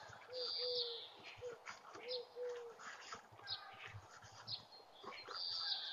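Milk cream bubbling and crackling faintly in an aluminium karahi as it cooks down into ghee, stirred with a metal spatula. A bird coos softly in the background, with short low calls in pairs during the first half.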